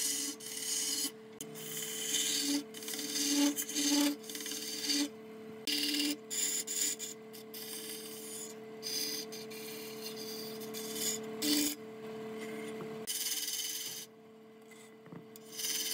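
Electric wood lathe motor humming steadily while a turning chisel cuts and scrapes the spinning wood in short, uneven passes. The cutting stops briefly near the end while the hum goes on.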